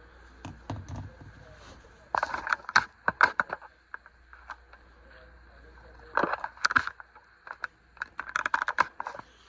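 A knife blade cutting and prying at the plastic retail packaging of a new folding knife: three bursts of sharp clicks and crackling scrapes, the loudest about three seconds in.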